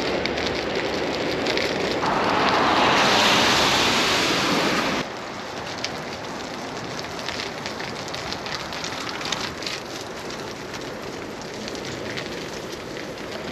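Wind rushing over the microphone with tyre hiss from a bicycle rolling on a wet path. It gets louder from about two seconds in, then drops off suddenly about five seconds in to a quieter outdoor hush with scattered faint clicks.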